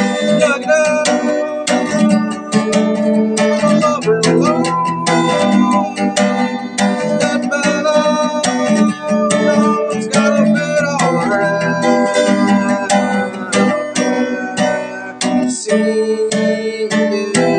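Acoustic guitar strummed in steady chords, with a voice singing along.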